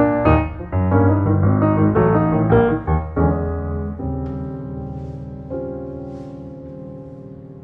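Background piano music: quick notes for about three seconds, then held chords that slowly fade away.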